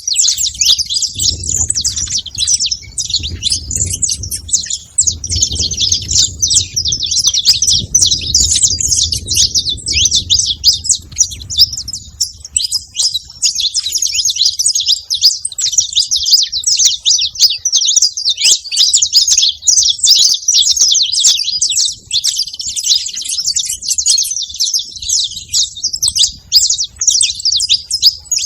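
Saffron finches chirping and calling without pause, a dense run of quick, high overlapping chirps.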